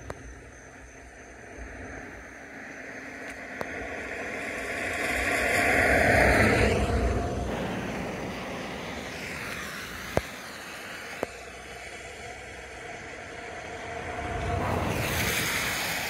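Cars passing on a nearby road: a rush of tyre and engine noise that swells and fades, loudest about six seconds in and rising again near the end. Two sharp clicks about ten and eleven seconds in.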